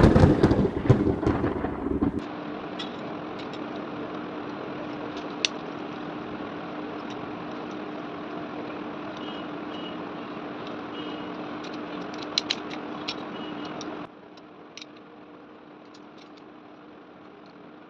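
Electric fan running: a steady motor hum with air noise and scattered light clicks, after a loud rushing noise in the first two seconds. It drops to a quieter hum about 14 seconds in.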